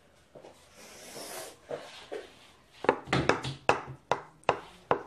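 A kitchen knife chopping through soft lasagna in a glass baking dish, with a quick run of sharp taps from about three seconds in as the blade strikes the dish. A brief soft rustle comes about a second in.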